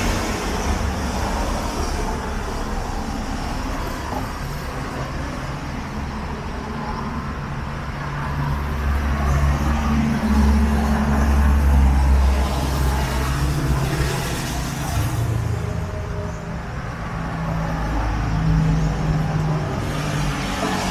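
Street traffic: motor vehicle engines rumbling low as they pass, swelling louder about halfway through and again near the end.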